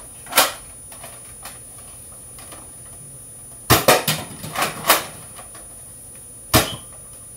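Sharp clicks and knocks of a toy gun being handled and fired: one about half a second in, a quick run of five or six close together around four to five seconds in, and one more near the end.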